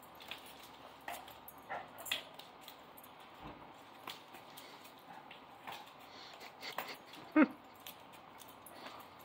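A Doberman puppy and a Great Dane playing: scattered claw clicks and scuffles on a concrete floor, a few small whimpers, and one short, louder dog yelp about seven seconds in.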